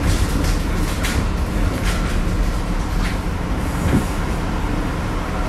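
Inside a New York 6 line subway car slowing into an elevated local station: a steady low rumble from wheels on rail, with a sharp clack about once a second.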